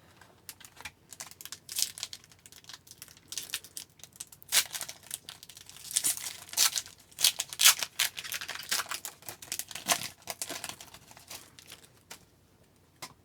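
A foil hockey card pack wrapper being torn open and crinkled, a long run of sharp crackles and rustles that stops near the end.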